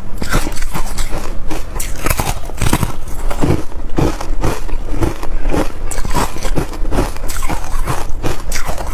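Biting and crunching hard frozen buckwheat ice chunks close to the microphone: a dense, irregular run of sharp cracks and crunches in quick succession.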